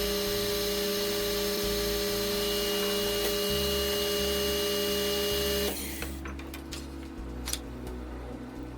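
OCA vacuum laminating machine running its lamination cycle: a steady hum and hiss that cuts off about two-thirds of the way through, followed by a few faint clicks.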